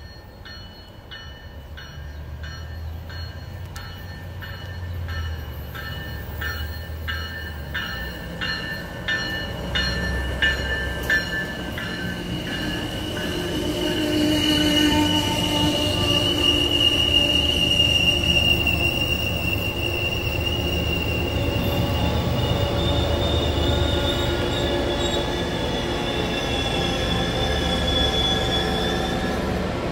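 A train running close by: its wheels click steadily over rail joints, about two clicks a second, while growing louder. From about halfway through a loud, high, steady wheel squeal takes over above a low rumble.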